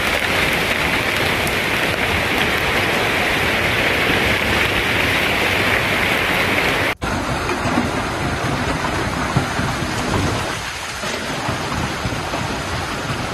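Hailstorm: a dense, steady hiss of hailstones pelting down in the storm. About seven seconds in it cuts abruptly to a second recording of the storm, slightly quieter and more uneven.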